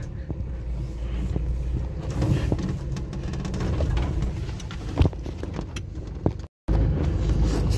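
Car driving slowly along a paved lane, heard from inside the cabin: a steady low engine and road rumble with a few knocks and rattles, the sharpest about five seconds in. The sound cuts out for a moment shortly after.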